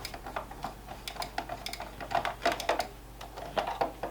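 Rapid, irregular clicking and tapping of hard plastic parts as a gaming steering wheel's casing is worked on and screwed back together.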